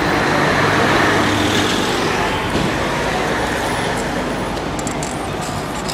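Heavy police armoured vehicle's engine running close by, with street noise; loudest about a second in, then easing a little.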